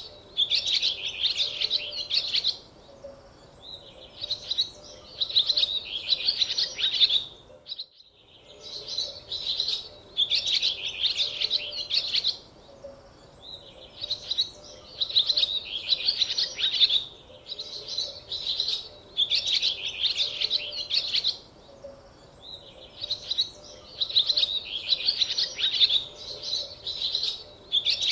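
A songbird singing: phrase after phrase of rapid high chirps in groups of about two seconds with short pauses between. The sound drops out briefly about eight seconds in.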